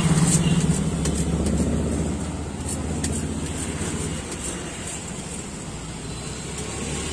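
A motor vehicle engine running steadily as a low drone, easing off after about two seconds, with faint scraping clicks of a blade stripping sugarcane stalks.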